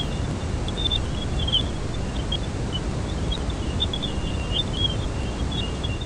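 Jupiter's electromagnetic (radio) emissions recorded by NASA's Cassini spacecraft in 2001 and converted into audible sound: a steady rushing hiss dotted with small high chirps and blips.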